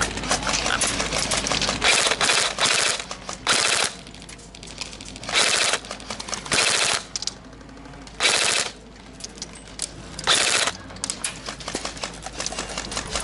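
Airsoft electric guns (AEGs) firing full-auto: about seven short, loud rattling bursts of about half a second each, with quieter firing between them.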